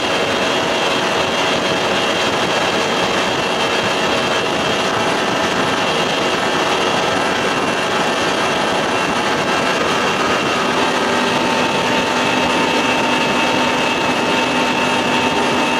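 A 1992 Johnson 60 hp three-cylinder two-stroke outboard, fitted with swapped-in carburetors, running at a steady high speed with the boat planing, over a constant rush of water off the hull. The engine note holds steady, with a slight change in tone about eleven seconds in.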